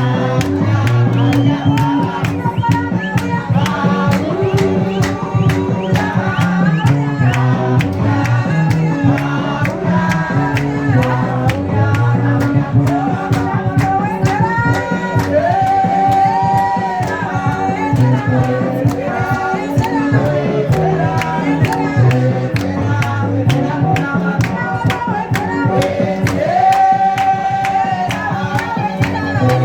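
Gospel music: voices singing over instruments, with a steady beat. The singers hold long notes in the middle and near the end.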